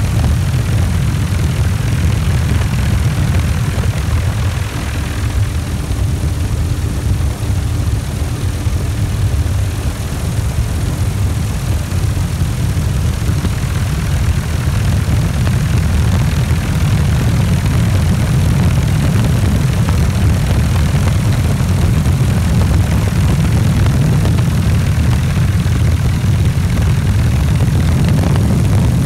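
Tour helicopter in flight, heard from a doors-off cabin: a steady, loud, low rumble of rotor and engine.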